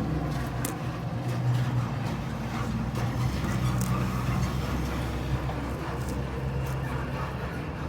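Backhoe's diesel engine idling steadily.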